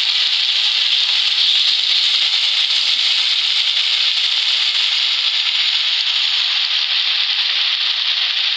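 Chicken steaks frying in hot oil in a pan: a steady crackling sizzle.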